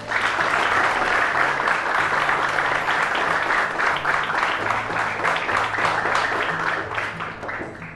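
Crowd of graduates applauding for a name just called, dense clapping that thins out near the end, with background music underneath.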